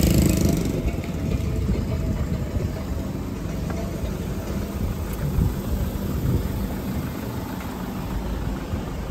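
Street traffic: an uneven low rumble of car engines, with a louder rush at the very start that fades within the first second.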